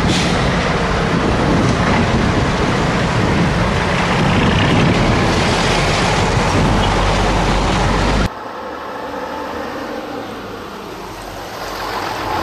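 Vintage diesel trucks, among them an old Scania, driving past one after another with their engines running loudly. About eight seconds in the sound cuts abruptly to a quieter stretch, and near the end a truck engine comes up close again.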